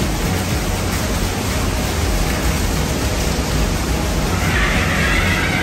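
Steady, loud rush of water inside a rock tunnel, with a faint high voice near the end.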